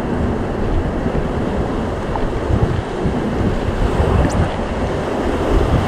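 River water rushing and lapping around an inflatable raft, with wind buffeting the microphone in a steady, loud rumble.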